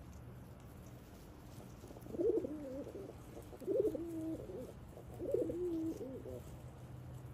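Domestic fantail pigeons cooing: three warbling coos about a second and a half apart, each under a second long, over a low steady hum.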